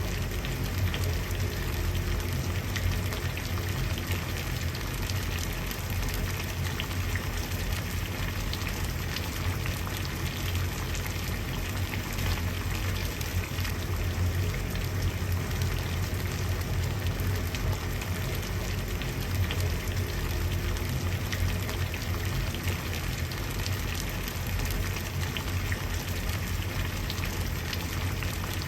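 Water at a steady boil: dense, constant bubbling with many small pops over a low rumble.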